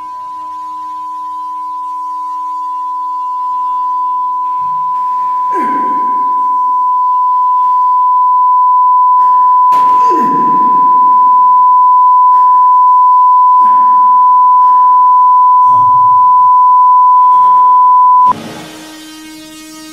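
A steady, high-pitched pure sine tone, like ringing in the ears, grows steadily louder under muffled swells of noise, the biggest about six and ten seconds in. It cuts off suddenly near the end and gives way to a broad rumbling noise.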